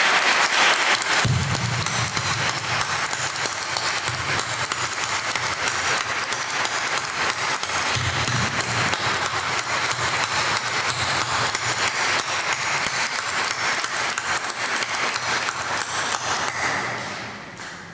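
Audience applauding, a long round of dense clapping that dies away near the end.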